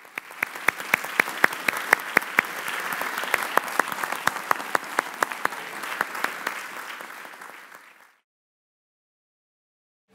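Audience applauding, with one close, sharp clapper standing out at about four claps a second. The applause fades out about eight seconds in.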